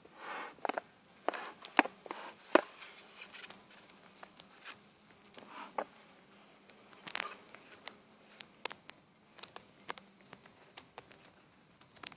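Hive-handling noises at an open beehive: a short hiss of the smoker's bellows at the start, then irregular clicks, taps and rustles of the bee-covered paper cover being peeled back off the frames, with a faint low hum of bees underneath.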